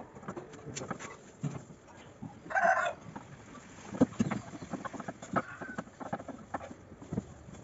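A chicken calls once, briefly, about two and a half seconds in. Scattered light clicks and taps of hand tools on the metal gas-lift mechanism of a hydraulic bed run under it, with a sharper knock about four seconds in.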